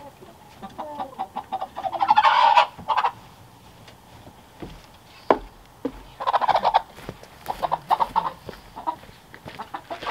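Chickens clucking in several loud bursts of rapid calls. A single sharp tap is heard about five seconds in.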